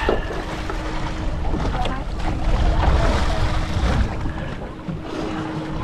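Wind buffeting the microphone and choppy water slapping against a small boat's hull, over a steady low hum. The rumble is heaviest about halfway through.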